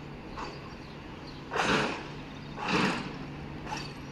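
Diesel track maintenance machine running with a steady low hum, under short, noisy bursts roughly once a second. Two of the bursts, about one and a half and three seconds in, are much louder than the rest.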